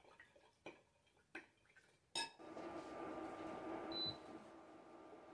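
A spoon clinking a few times against a glass mixing bowl, then a sharp click about two seconds in, after which a Keno induction hob runs with a steady fan hum and a faint whine. A short high beep from its controls sounds about four seconds in.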